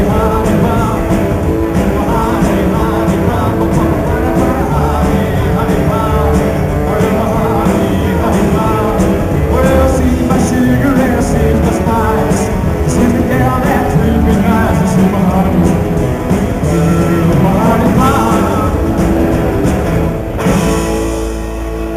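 Live rockabilly band playing, with a sung lead vocal over acoustic guitar, electric guitar, upright bass and drums. The song stops near the end and the crowd applauds.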